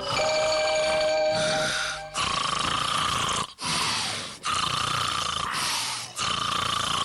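A brief music cue with held tones, then a cartoon dog's exaggerated snoring sound effect: long, loud, noisy snores, one after another every second or so.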